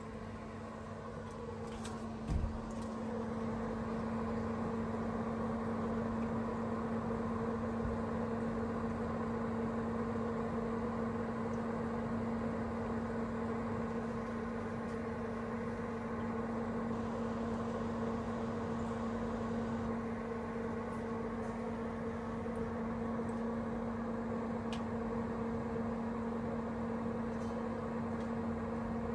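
Clima Puro through-wall monoblock air conditioner running at its maximum setting, heard up close from outside: a steady hum with two held tones over a rush of fan air. It gets louder about three seconds in, after a short knock.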